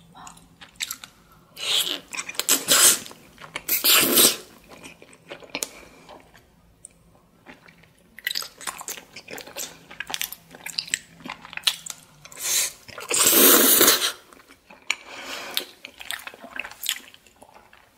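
Close-miked slurping and chewing of flat glass noodles: irregular wet mouth sounds, with longer, louder slurps about two and four seconds in and again about thirteen seconds in.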